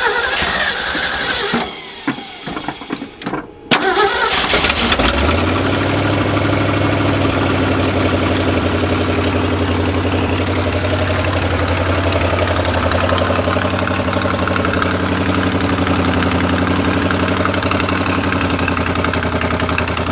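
Carbureted pickup truck engine, its carburetor freshly rebuilt, cranked and firing in irregular sputters with short gaps. About four seconds in it catches and settles into a steady, even idle.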